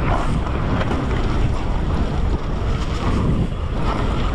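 Wind buffeting the microphone over a mountain bike riding fast down a rough dirt trail: tyres rolling over roots and ruts, with the bike's frame and parts rattling over the bumps.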